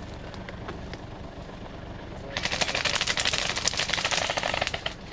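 Airsoft rifle firing one long full-auto burst of rapid clicks, starting about halfway in and lasting a little over two seconds. A vehicle's engine rumbles steadily underneath.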